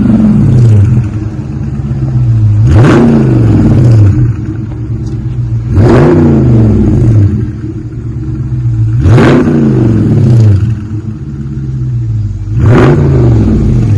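2021 Dodge Charger Scat Pack's 6.4-litre HEMI V8 exhaust, rear mufflers deleted with the factory mid mufflers and active exhaust valve kept, idling with a rumble and blipped four times, each rev a quick rise in pitch that falls back to idle.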